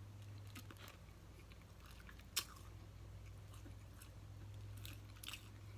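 A person biting and chewing fried fish close to the microphone, with a few crisp clicks from the breading, the sharpest about two and a half seconds in and a couple more near the end, over a low steady hum.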